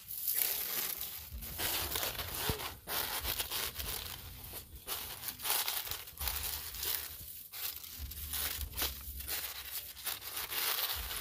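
A wrapping of large leaves being pulled open by hand, layer after layer: irregular crinkling and tearing rustles.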